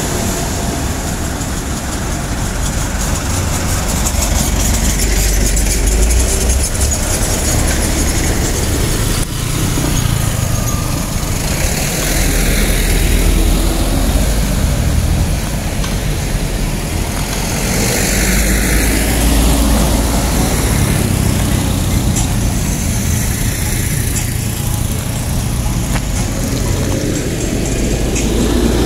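Road traffic of trucks and other vehicles passing slowly on a hill, their engines running with a steady low rumble that swells and eases several times as vehicles go by.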